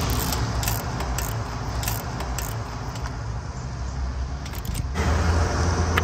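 Ratchet wrench and socket tightening a spark plug into the cylinder head: scattered metallic clicks and rattles of the ratchet, over a steady low rumble.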